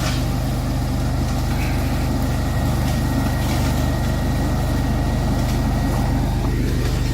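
The engine of a remote-controlled Peruzzo mower running steadily under load, with a constant low drone.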